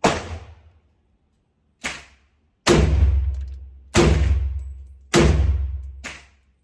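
Gunshots from a 7.62x39 AR pistol fired at a steady pace, about one shot a second, six in all. Two of the shots, about two seconds in and near the end, are quieter and shorter than the others.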